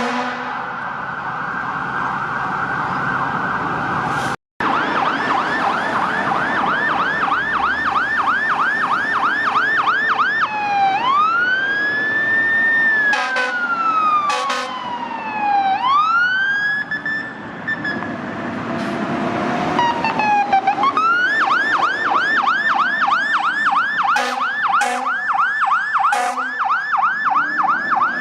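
Electronic emergency-vehicle siren switching between a rapid yelp, about four sweeps a second, and a slow rising and falling wail, then back to the yelp. It is preceded by a held steady tone that cuts off abruptly about four seconds in.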